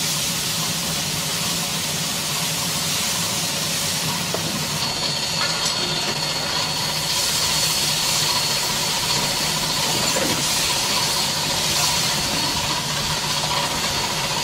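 Gas-fired rotating griddle running: a steady hiss over a low hum, with a faint high whine joining about a third of the way in.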